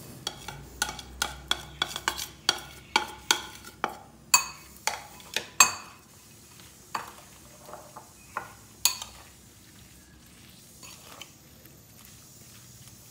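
A steel spoon clinking against bowls. First comes a quick run of sharp clinks, about three a second, as spices are scraped off a ceramic dish into a glass bowl. Then sparser clinks follow as the spoon stirs sliced onion and green chillies in the glass bowl, thinning to a few soft ticks near the end.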